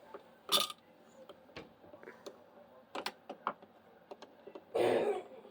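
Light clicks and taps from hands and tools working on a wall light switch, with a short scrape about half a second in and a brief rustle near the end.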